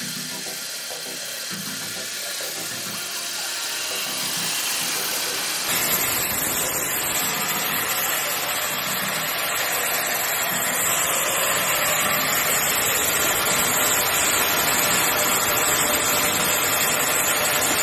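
Homemade band sawmill running and sawing through a log: a steady machine drone with the hiss of the band blade in the wood. The sound shifts abruptly about six seconds in and is slightly louder after that.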